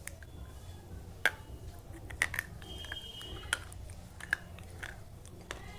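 Slate pencil being bitten and chewed: a series of sharp, crisp crunches spaced irregularly, about seven in all, the loudest about a second in and around two seconds in.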